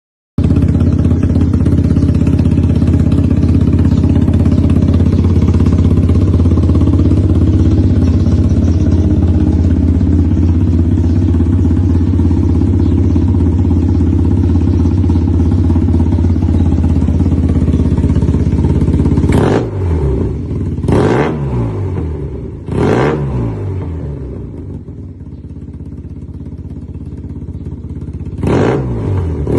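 Yamaha TMAX parallel-twin engine breathing through an SC titanium full exhaust system, idling steadily. It is then blipped sharply three times in quick succession, settles back to idle, and is revved once more near the end.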